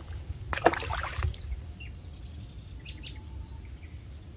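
Lakeside ambience: a steady low rumble of wind on the microphone with water lapping, a short sharp burst of noise about half a second in, and faint bird chirps near the middle.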